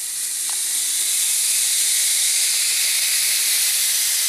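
Swordfish steaks sizzling on an oiled electric plancha griddle: a steady high hiss that builds a little over the first second.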